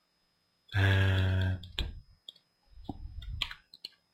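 Several scattered clicks of a computer mouse, after a drawn-out spoken 'and'.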